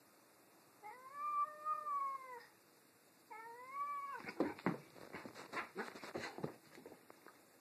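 A cat's long, drawn-out warning howl at another cat, rising and then falling slightly, followed by a second, shorter howl. About four seconds in, a swatting scuffle breaks out: a quick run of sharp thumps and scrapes lasting around three seconds.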